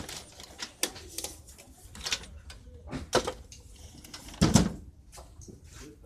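Irregular clicks and knocks of handling, from items and cords being moved on a metal shelf, with a heavier thump about four and a half seconds in.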